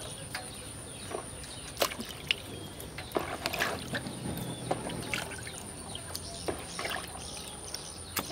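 Water splashing and dripping in a plastic tub as fish fillets are rinsed by hand and lifted out, with scattered small splashes and drips.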